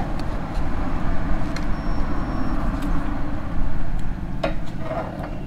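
Motorcycle engine idling steadily, with a few light clicks.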